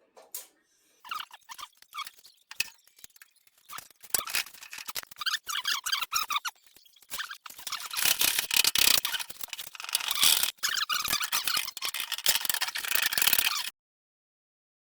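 Rusted metal parts of a Delta 12-inch planer being twisted and spun free, squeaking and grating metal on metal as the corroded surfaces turn against each other. A few scattered clicks first, then squealing that gets louder and stops abruptly near the end.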